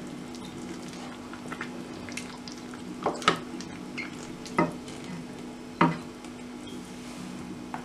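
A spatula stirring and turning mutton leg pieces in a pot of gravy, knocking against the pot about four times from around three seconds in. A steady low hum runs underneath.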